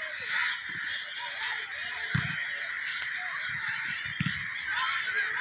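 Crows cawing, with a harsh call about half a second in, over a steady background hiss and a couple of short low thumps.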